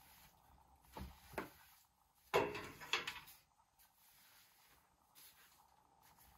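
Knocks and a short rattling scrape from a long wooden cleaning handle being moved around a gas cooker and gas cylinder during kitchen cleaning. There are two light knocks about a second in, then a louder scrape and clatter lasting under a second.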